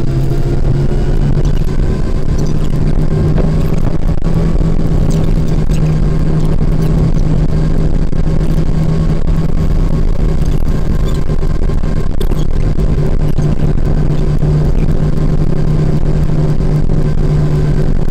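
Car engine running, a loud steady low hum heard inside the cabin.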